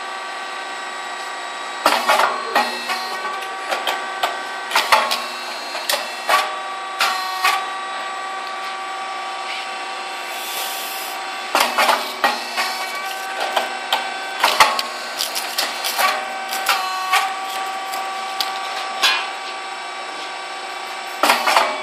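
Puffed rice cake machine running: a steady hum with a few steady high tones, broken by two long runs of sharp clacks and knocks from the mould mechanism. There is a brief hiss about halfway through and another burst of clacks at the very end.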